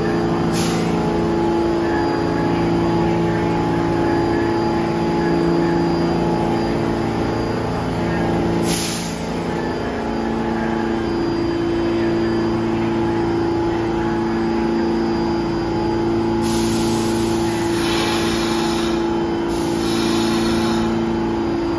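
New York City subway train at the station, giving a steady hum with several held pitches. Short sharp hisses come about half a second and nine seconds in, and a longer, broken hiss near the end.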